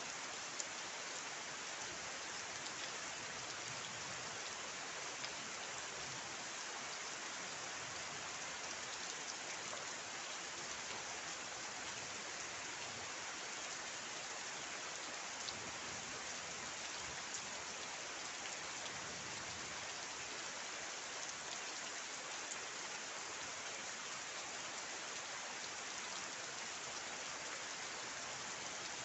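Steady rain falling: an even hiss with a few louder single drops ticking now and then.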